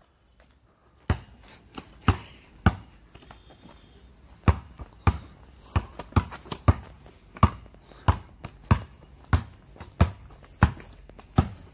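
A basketball being dribbled on asphalt, one sharp bounce about every half second, starting about a second in, with a brief break in the bouncing around three seconds in.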